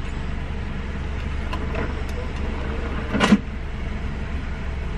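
Car engine idling, a steady low hum heard inside the cabin, with one brief louder sound about three seconds in.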